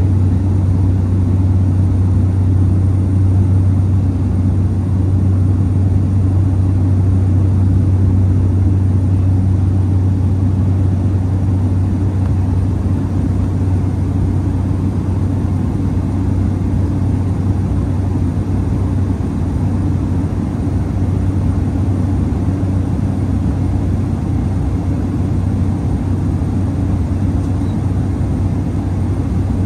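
Steady in-cabin drone of a Cessna 208B Grand Caravan's Pratt & Whitney PT6A turboprop and propeller in flight on approach, heard from inside the cabin. A strong low propeller hum sits under a broad rush of engine and air noise.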